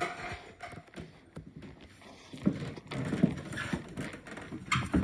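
Footsteps of sandals on a plywood floor: an uneven run of light knocks and shuffles, with a couple of sharper thumps near the end.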